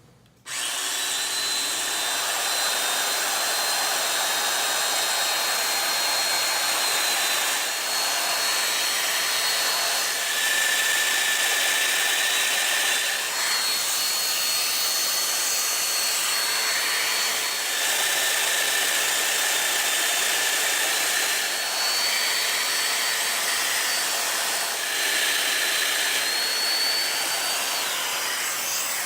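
Domino joiner running continuously and cutting mortises in wood: a steady high whine over a rushing hiss, starting about half a second in, with the pitch and level dipping slightly each time it plunges.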